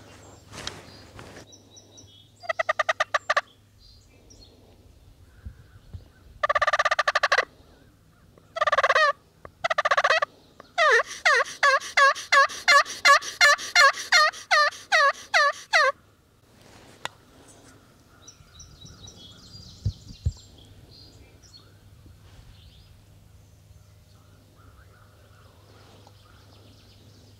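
Wild turkeys calling close: four loud rattling gobbles in the first ten seconds, then a long, even run of about seventeen yelps lasting some five seconds. Faint songbird chirps follow.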